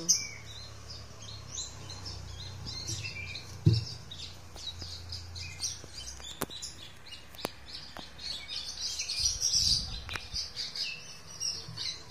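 Small birds chirping again and again, with short high calls throughout, over a low hum. There is one sharp knock about four seconds in and a few light clicks later.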